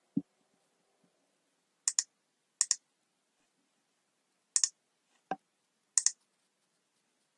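Four pairs of sharp clicks at a computer, each pair quick (click-click), a second or two apart, with one duller knock about five seconds in.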